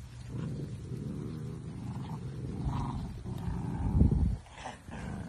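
Dachshund puppy growling in play, a low continuous rumbling growl, with a louder low thump about four seconds in.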